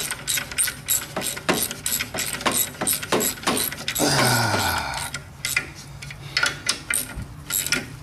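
Ratchet wrench clicking in irregular short runs as the clutch pressure plate bolts are snugged down a little at a time around the plate. About four seconds in, a short louder drone falls in pitch.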